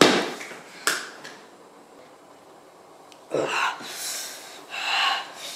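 A thud as a person falls back against a couch, with a smaller knock about a second later, then a few loud, gasping breaths from a person in pain.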